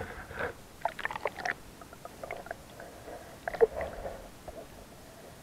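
Water sloshing and gurgling around a boat-mounted action camera as it dips below the surface, with scattered irregular knocks and clicks; the sharpest comes about three and a half seconds in.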